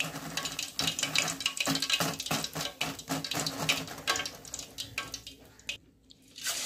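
Marinated, cornflour-coated chicken pieces deep-frying in hot oil in a kadhai: a steady sizzling hiss with many sharp crackles and spits. The sound fades and drops almost to silence about a second before the end, then the hiss returns.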